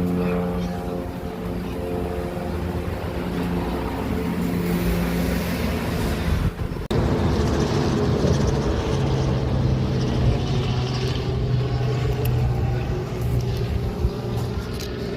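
Small propeller plane's piston engine droning at a steady pitch. It drops out briefly about seven seconds in, then a lower, steady engine drone takes over.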